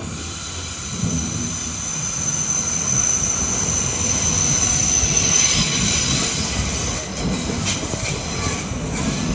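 Uetliberg line (SZU) electric multiple-unit train pulling into the station platform and slowing, its running rumbling steadily. A high, thin squeal sounds for several seconds, followed by a few sharp clicks near the end as it draws along the platform.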